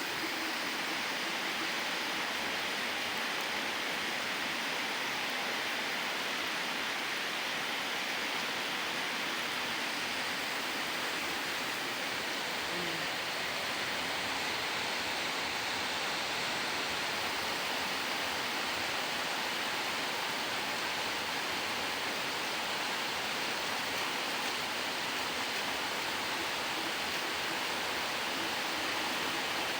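Steady heavy rain, an even rushing hiss that does not change.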